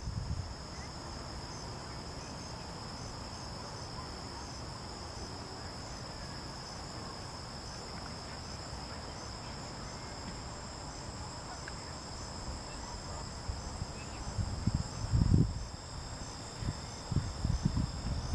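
Late-summer insects singing in a steady, high-pitched chorus with a faint regular pulse, under a low wind rumble on the microphone that turns into louder gusts in the last few seconds.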